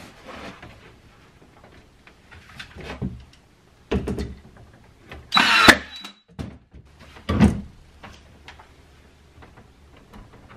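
Cordless Ryobi nail gun firing once about halfway through: a brief motor whine ending in a sharp crack as it drives a nail into the pine boards. Wooden knocks and handling of the boards and tool come before and after it.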